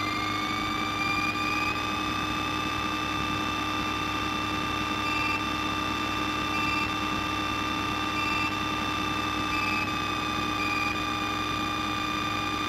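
Piper Cherokee's piston engine running, heard from inside the cabin. Its note rises over the first two seconds, holds steady, then eases down slightly about ten seconds in.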